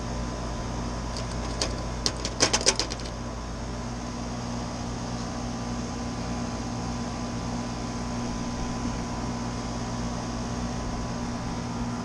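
Steady low machine hum with a constant tone underneath, and a quick run of sharp metallic clicks about two seconds in from wire strippers cutting and stripping wire.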